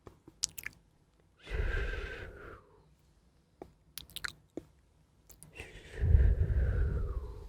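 Close-miked ASMR mouth sounds of pretend eating: scattered wet clicks and two longer chewing sounds, the second louder, about a second and a half in and again near the end.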